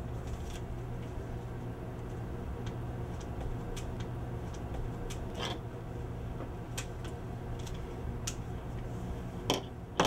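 Steady low hum, with scattered light clicks and taps as a nylon partial denture and stone dental model are handled.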